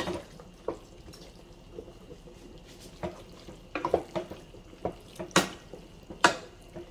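Wooden spoon stirring macaroni, vegetables and cheese sauce in a pot: wet squelching of the pasta, with scattered sharp knocks of the spoon against the pot.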